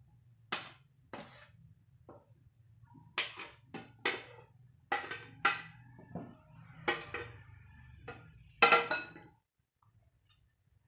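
A metal spoon clinking and scraping against a glass bowl and the bowl of gram flour as the flour is tapped out of it: a run of sharp irregular clinks, the loudest a little before the end, stopping about nine seconds in. A faint low steady hum lies underneath.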